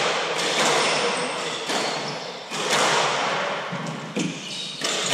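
A hardball doubles squash rally: the hard ball is struck by racquets and cracks off the court walls, sharp hits about a second apart, each ringing out in the court's echo.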